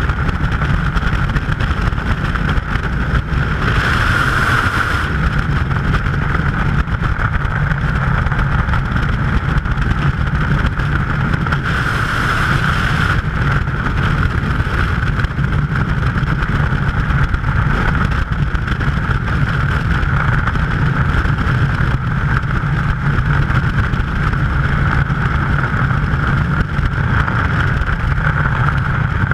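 Steady, loud freefall wind rushing over a skydiver's helmet-camera microphone, swelling louder briefly about four seconds in and again about twelve seconds in.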